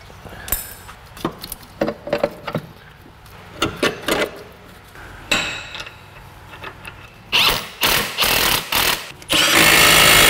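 Metal parts clinking and knocking as the control arm and its bolt are fitted, then a handheld power tool driving the bolt in, in short bursts from about seven seconds in and one longer run near the end.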